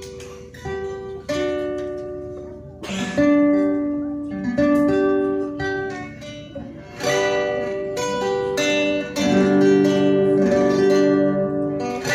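Several acoustic guitars playing a hymn tune together, plucked melody notes over chords, the playing getting louder about seven seconds in.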